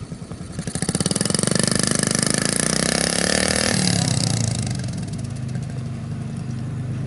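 Small 50cc dirt bike engine revving up about half a second in, its pitch climbing as it pulls away, then easing off to a steadier lower note about four seconds in.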